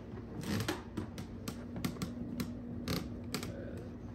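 Irregular light clicks and knocks of people moving about a quiet room: footsteps and camera handling, about ten in all. A faint steady hum sounds through the middle.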